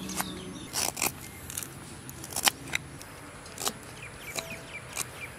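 Kitchen knife chopping ginger root on a wooden chopping block: sharp, irregular knife strikes against the wood, about nine over a few seconds, with faint bird chirps.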